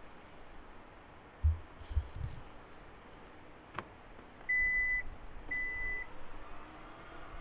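Kia Sorento hybrid's cabin warning chime giving two steady, high electronic beeps, each about half a second long and a second apart. Before them come two dull low thumps, the loudest sounds here, and a single sharp click.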